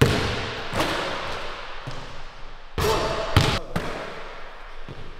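A basketball bouncing on a hardwood gym floor in several unevenly spaced thumps, each echoing briefly around the hall.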